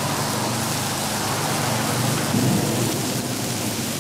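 Takoyaki batter poured onto a hot takoyaki griddle, sizzling with a steady hiss as it hits the hot pan.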